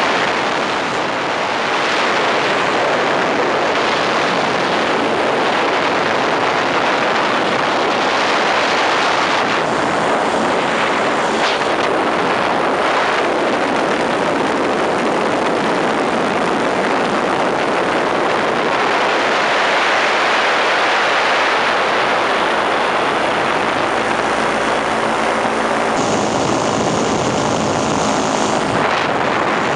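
Ultralight aircraft engine and propeller running steadily in flight, heard from on board with wind rushing over the microphone. The engine note shifts slightly near the end.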